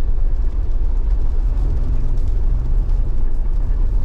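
Steady low rumble of a Jeep running, with wind noise from the sandstorm.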